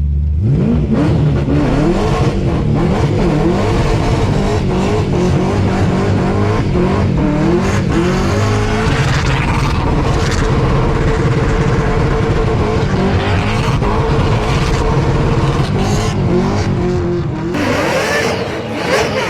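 Burnout car's engine held at high revs, its pitch rising and falling repeatedly as the throttle is worked, over the hiss of tyres spinning on the spot in a burnout. The engine jumps up from a steady idle about half a second in.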